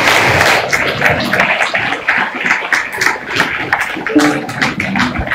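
Audience and performers applauding, with voices in the crowd; about four seconds in, a plucked string instrument starts to play.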